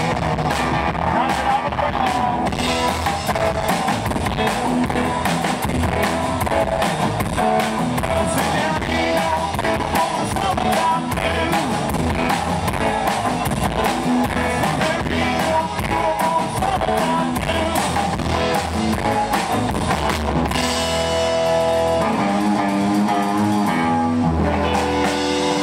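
Live rockabilly band playing a rock 'n' roll number: twangy hollow-body electric guitar, slapped upright bass and a drum kit, with the drummer singing. About twenty seconds in, the beat drops out for a few seconds and held notes ring on.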